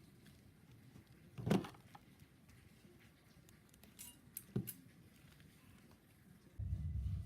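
A few light knocks and clinks of small hard objects being handled, the loudest about one and a half seconds in and a short cluster about four seconds in. A steady low hum starts near the end.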